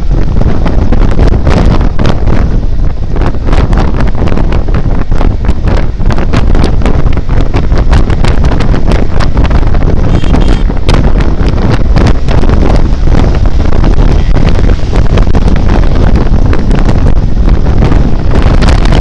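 Heavy wind buffeting on the microphone of a moving motorcycle, with the running of a Benelli TRK502 parallel-twin beneath it and many short sharp knocks and clicks throughout.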